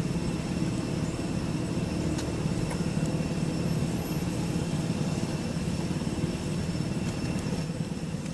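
A steady low motor-like rumble, with faint steady high-pitched tones above it.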